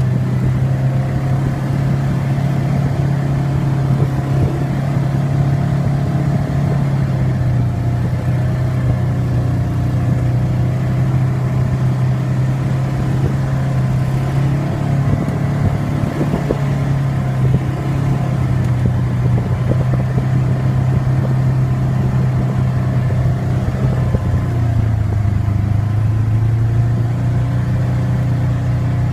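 ATV engine running under way at a steady pitch, easing down in pitch a few times as the throttle is let off and picked up again.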